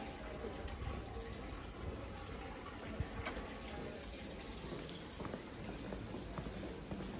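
Steady rain falling, with scattered drips and sharp taps, the loudest about three seconds in.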